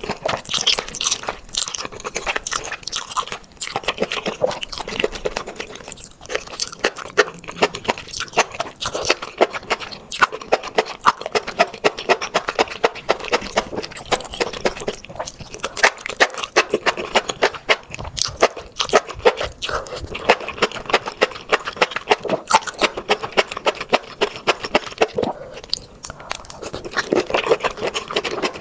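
A person chewing and crunching seafood, a steady run of sharp crunches many times a second.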